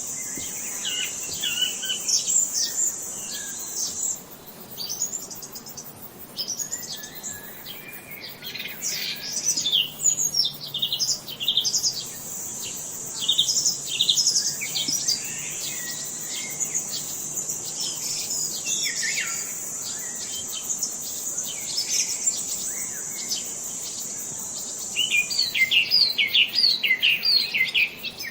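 Several songbirds chirping and singing in quick, varied notes over a steady high-pitched insect buzz. The buzz drops out a few seconds in, comes back near the middle and stops near the end, where a fast, dense run of chirps takes over.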